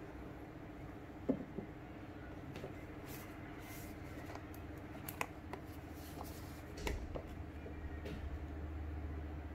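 Hands handling a rigid cardboard phone box, with light taps, clicks and scrapes as the box parts are lifted and pulled apart, the sharpest about a second in. A steady low hum runs underneath.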